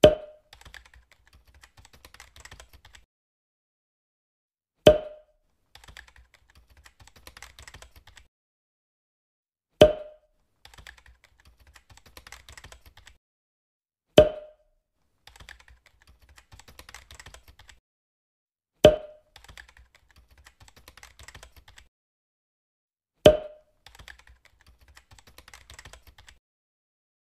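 Keyboard typing sound effect: a quick run of soft key clicks lasting two or three seconds, each run opened by a sharp thud. The pattern repeats about every four to five seconds, six times in all.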